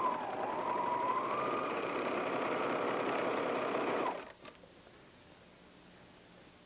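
Pfaff Hobbylock serger running at speed, stitching and trimming a fabric edge, with a whine that wavers in pitch. It stops abruptly about four seconds in, followed by a faint click.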